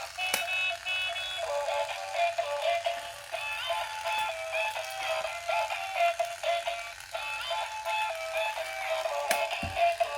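Simple electronic melody of stepped beeping notes, thin and with no bass, with a sharp click near the start and another near the end and a low thump at the close.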